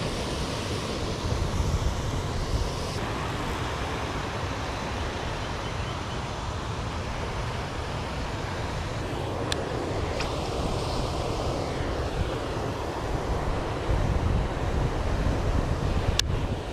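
Wind rumbling on the microphone over a steady rush of water, with louder gusts about two seconds in and again near the end. A few sharp clicks, two near the middle and one near the end.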